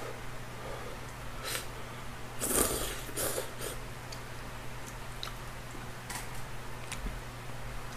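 A man slurping soba noodles in curry broth: a few breathy sucks about two and a half to three and a half seconds in, the first the loudest. A couple of light clicks follow near the end, wooden chopsticks against the ceramic bowl.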